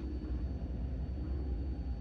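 Steady low rumble inside a car's cabin with the engine idling and the HVAC running, with a faint droning tone that dies away about half a second in.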